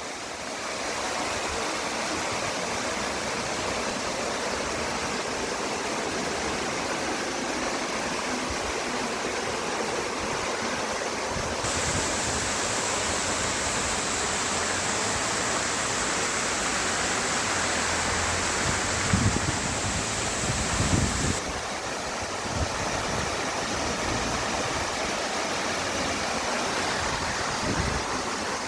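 Waterfall rushing steadily, a constant hiss of falling water, with a couple of brief low thumps about two-thirds of the way through.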